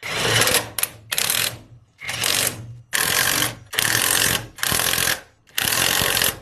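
Impact wrench run in about seven short rattling bursts, loosening the fasteners to pull the half shaft out of an electric tricycle's rear axle.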